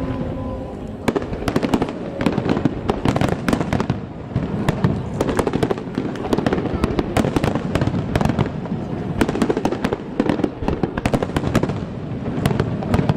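Large aerial fireworks display going off in a dense barrage: many sharp bangs and crackles in rapid succession over a continuous rumble.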